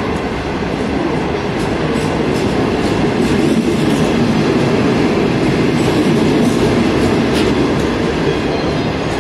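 China Railway green passenger coaches rolling past on the track, a steady noise of wheels on rail with a few faint clicks, slightly louder in the middle.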